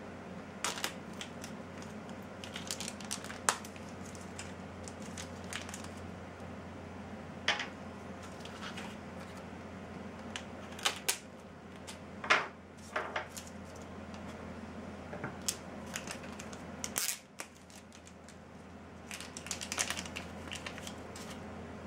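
Small parts being handled out of plastic bags on a wooden workbench: scattered crinkles of a plastic bag and light clicks of a small metal nut set down on the desk, over a steady low hum.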